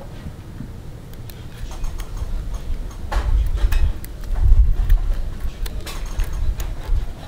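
Kitchen scissors snipping through a raw mantis shrimp's shell: a scatter of sharp clicks, over bursts of low rumble.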